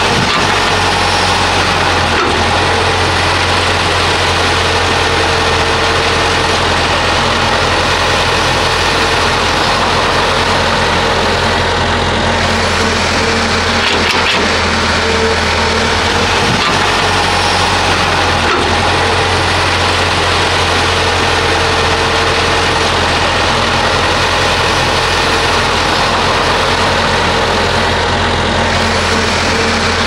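Heavy diesel engine of a hydraulic excavator running under load with a steady, unchanging drone.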